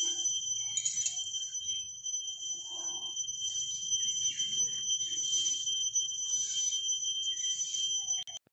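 A steady high-pitched tone with a fainter one an octave above it, over faint scattered rustling; the tone cuts off suddenly near the end.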